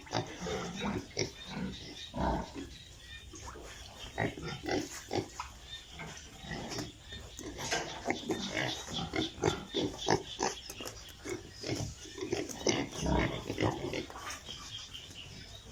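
A group of piglets grunting and squealing, many short overlapping calls one after another without a break.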